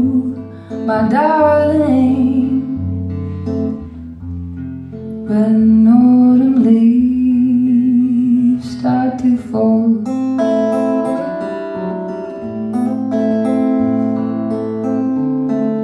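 Woman singing long held phrases over an acoustic guitar, the voice dropping out about ten seconds in while the guitar plays on alone.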